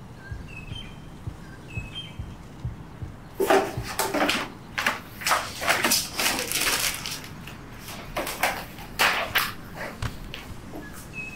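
Hurried rummaging through a shelf: a dense run of rustling and clattering as papers and objects are shoved about, starting about three and a half seconds in and stopping near the end. Before it, a few faint bird chirps.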